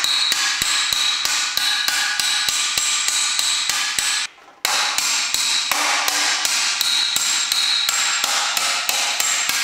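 A hammer striking a thin steel pedal-car rear wheel-arch panel held on a domed metal stake, in quick even blows about four a second with a high metallic ring. The hammering is knocking out the buckling that welding left in the thin sheet. There is a brief break about four seconds in.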